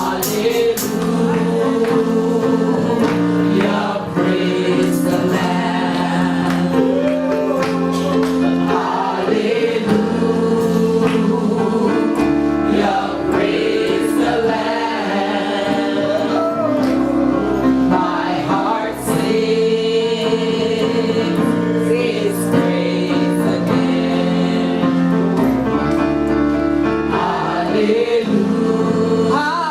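Gospel choir singing over a backing of held chords and bass.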